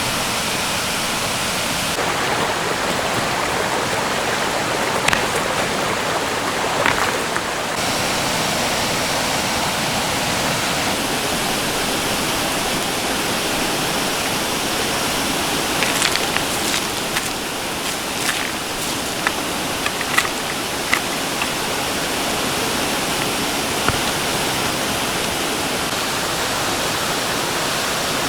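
Creek water flowing steadily, with a few short light clicks and knocks now and then.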